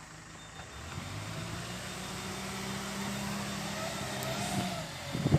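Backhoe loader engine running steadily, growing gradually louder.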